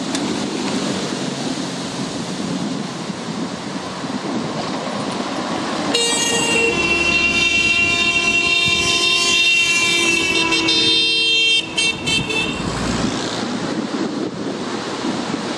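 Car horns of approaching cars sounding together in one long blast that starts about six seconds in and lasts about six seconds, breaking into a few short toots near its end. A steady rushing noise runs under the rest.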